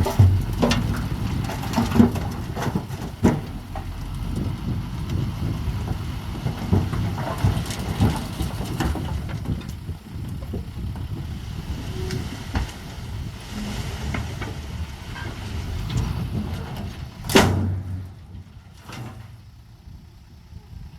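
Bulldozer's diesel engine running, with frequent clanks and knocks over it. A loud bang comes near the end, after which the machine sounds quieter.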